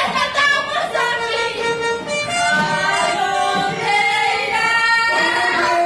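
Women singing into microphones over loud backing music.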